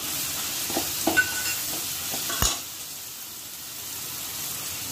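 Vegetables frying in oil in a kadai, sizzling, while a metal slotted spatula stirs them, with a few light clicks and one sharp knock of the spatula on the pan about halfway through. The sizzle is quieter after the knock.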